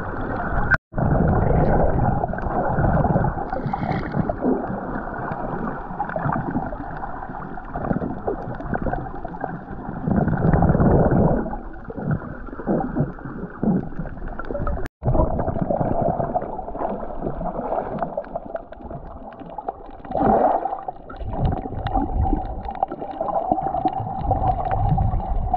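Muffled underwater gurgling and water movement picked up by a snorkeler's camera in a waterproof housing, swelling and ebbing without a pattern.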